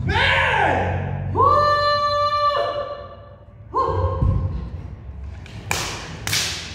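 Kendo players' kiai shouts in a large hall: a falling cry at the start, a long held shout, then a shorter one. Near the end come two sharp cracks about half a second apart as a leaping shinai strike lands.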